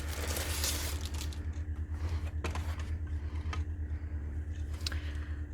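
Craft packaging and MDF pieces being handled during unpacking: a rustling scrape in the first second, then a few scattered clicks and taps, over a steady low hum.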